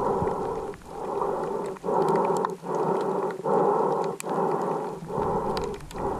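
A swimmer breathing hard and evenly, muffled through an underwater camera housing, each breath under a second long. Faint sharp clicks are scattered through it.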